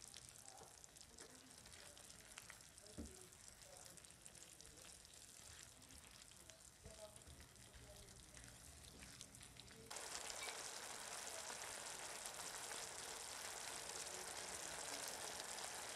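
Diced beef loaf, potatoes and carrots in tomato sauce sizzling in a nonstick pan while a silicone spatula stirs them, with a soft knock about three seconds in. About ten seconds in the sizzle turns suddenly louder and steadier as the pan simmers unstirred.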